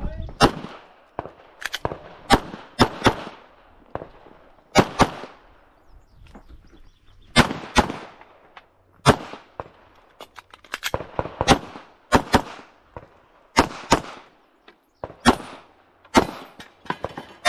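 Handgun fired in rapid strings during a timed IPSC stage: sharp shots, mostly in quick pairs or short bursts, with pauses of about a second between groups as the shooter moves from one target array to the next.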